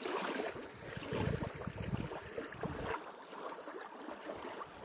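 Small waves lapping on a gravel lakeshore, a steady washing noise, with wind buffeting the microphone about a second in.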